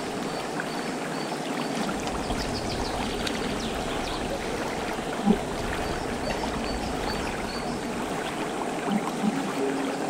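Shallow river water flowing and swirling, stirred by a hand reaching through the current into the pebbly riverbed, with a brief louder bump about five seconds in.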